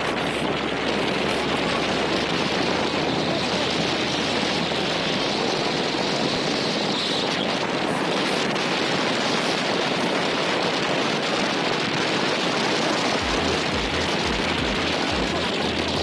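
A steady, even rushing noise with no separate knocks, tones or voices.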